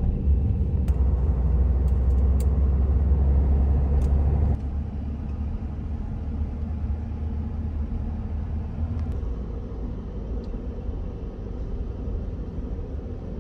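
Low engine and road rumble heard inside a pickup truck's cab while driving; it drops noticeably in level about four and a half seconds in.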